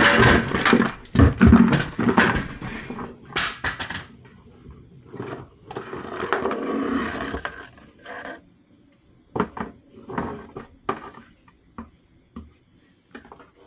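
A hoverboard being taken apart by hand: plastic and metal parts clattering and knocking against each other and the table. It is dense at first, has a stretch of scraping and rustling in the middle, then thins to scattered clicks and knocks.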